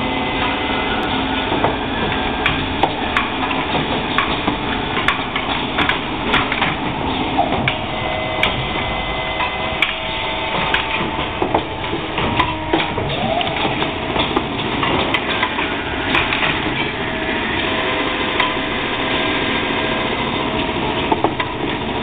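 Automatic rotor turning lathe running while it machines micro aluminium motor rotors: a steady machine drone with frequent, irregular sharp clicks and knocks from its feed mechanism and tooling.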